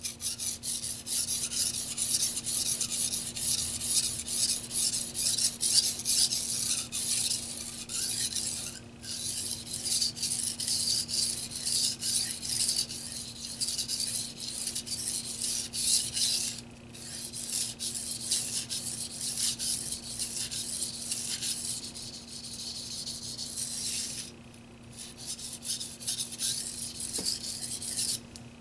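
A Tojiro white-steel (Shirogami #2) petty knife edge scraping on a hard Shapton Pro water stone in quick back-and-forth strokes, worked near the heel, with a few short pauses between runs. This is sharpening that raises a burr along the edge.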